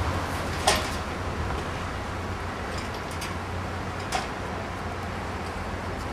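Steady low background rumble with two short sharp knocks, a louder one just under a second in and a softer one about four seconds in.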